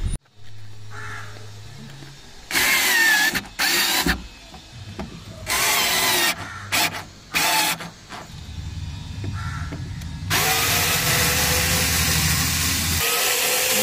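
Cordless drill/driver backing out the door speaker's mounting screws. It runs in several short bursts, then one longer run from about ten seconds in.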